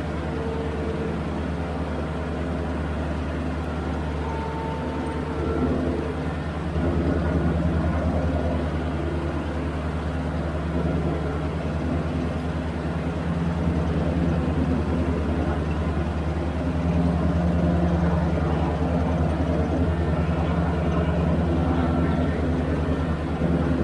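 Toro Groundsmaster 3280-D ride-on mower's diesel engine running steadily under load while the cutting deck mows long grass. It gets a little louder about seven seconds in.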